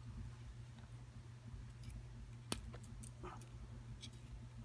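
Faint small metal clicks of pin tumblers being let out of an Abus 72/40 padlock's cylinder with a follower, with one sharp click about two and a half seconds in, over a steady low hum.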